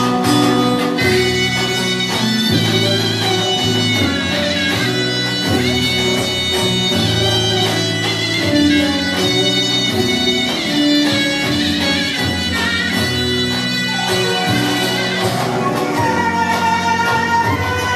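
Turkish folk dance music playing steadily, a melody line over sustained low notes, accompanying a dance troupe.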